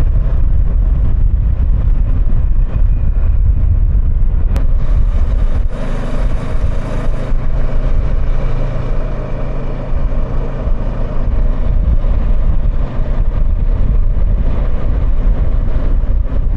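Kawasaki Versys 650's parallel-twin engine running steadily while riding, under a heavy low rumble of wind on the helmet microphone.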